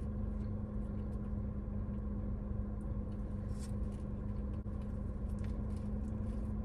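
Steady hum of a running car heard from inside the cabin, with a constant low rumble and an even drone, over a few faint crackles and chewing noises as a sandwich is handled and bitten.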